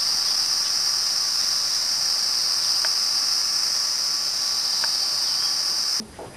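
Steady high-pitched chorus of crickets chirring, which cuts off abruptly near the end.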